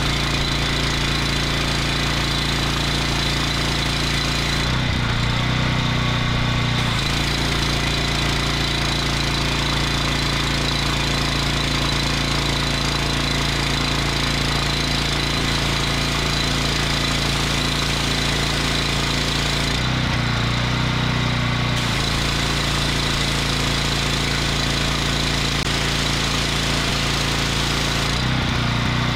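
Honda GX390 gas engine running a triplex plunger-pump pressure washer under pressure while its unloader valve is turned up. The engine note holds steady and shifts briefly three times, about five, twenty and twenty-eight seconds in.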